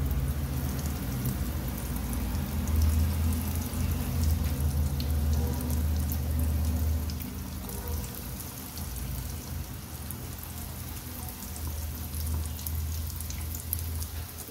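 Breaded chicken cheese rolls deep-frying in hot oil: a steady crackling sizzle over a low steady hum. It is louder in the first half and eases off about seven seconds in.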